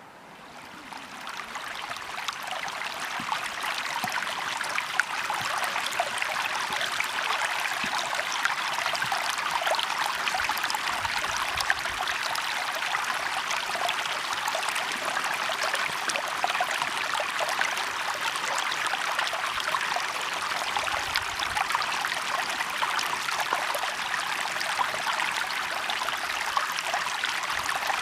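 Water flowing in a stream, a steady murmur with fine splashy crackle, fading in over the first two or three seconds.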